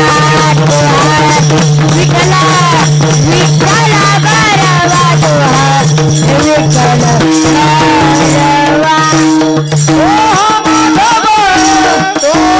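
Devotional kirtan music: a gliding melody over a steady low drone, with dense jingling percussion throughout. The drone stops about ten seconds in.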